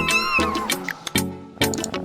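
A cat's long, slowly falling meow that fades out about a third of the way in, over background music with a steady beat.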